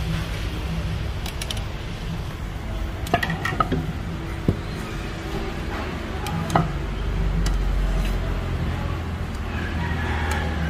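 Street-side ambience: a steady low rumble of traffic, with a few sharp clinks of dishes and utensils at the food stall.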